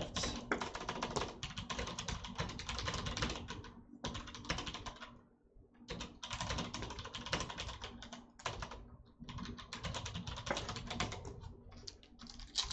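Typing on a computer keyboard: rapid key clicks in several runs, with short pauses about four, six and nine seconds in.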